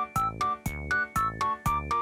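Background music: a quick, even tune of about four notes a second over a steady beat.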